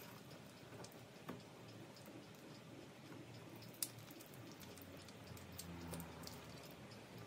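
Faint sticky crackling and small clicks of beeswax honeycomb being crushed and squeezed by hand to press out the honey, with one sharper click about four seconds in.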